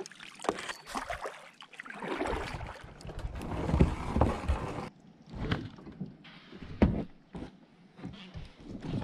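A kayak being paddled through shallow water: paddle strokes splashing, with a few sharp knocks in the second half.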